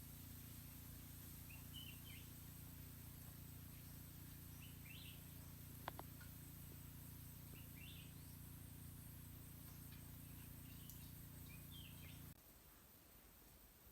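Faint outdoor ambience: a bird gives short chirps about every two seconds over a low steady hum, which cuts off suddenly near the end, with a single click midway.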